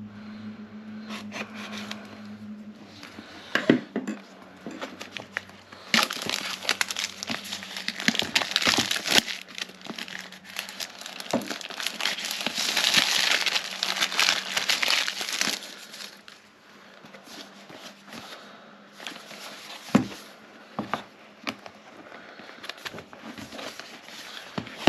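Product packaging being handled and opened by hand: scattered taps and clicks, then about six seconds in a long stretch of crinkling and tearing of packaging lasting about ten seconds, then quieter handling with a few sharp taps.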